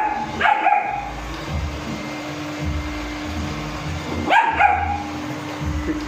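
German shepherd puppy barking at a running robot vacuum: one high yappy bark about half a second in, then two quick barks about four seconds in. A steady low hum from the robot vacuum runs underneath.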